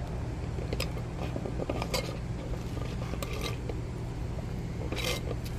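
A steady low hum with four brief, light clinks or rattles spread through it.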